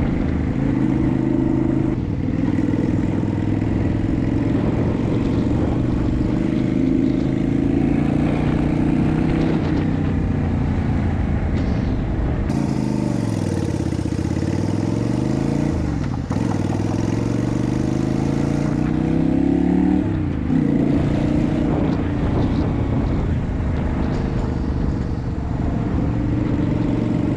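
Yamaha Virago 250 (XV250) air-cooled V-twin with an aftermarket exhaust, riding along at steady revs. About halfway through the revs fall away and then pick up again; the engine revs up once more, drops sharply with a gear change about 20 s in, and goes back to steady running, with wind noise on the microphone.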